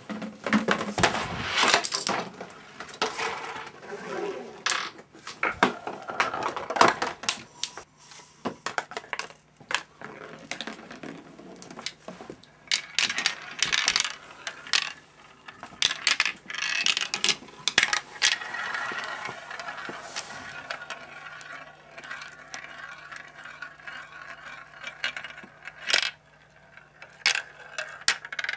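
A marble rolling and clattering down a plastic marble-run track, with many sharp clicks and knocks and a steadier rolling rattle in the second half.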